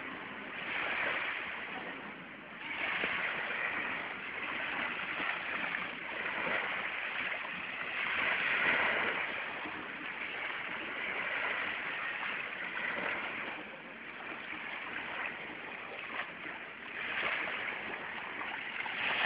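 Sea waves washing in, a rushing surge that swells and fades every few seconds.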